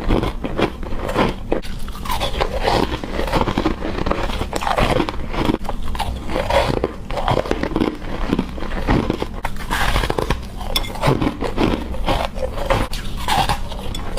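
Ice being bitten and chewed close to the microphone: steady, dense crunching with irregular cracks and crackles throughout.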